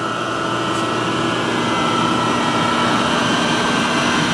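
American Rotary AD30 rotary phase converter's idler, a three-phase motor, running at speed just after start-up, making three-phase power from a single-phase supply. It gives a steady hum with a thin high whine above it.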